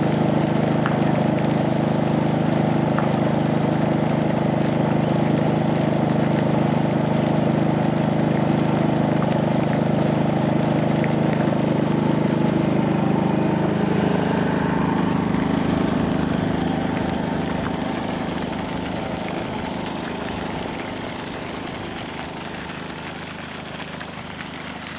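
A motor running with a steady, even hum that fades gradually over the last several seconds.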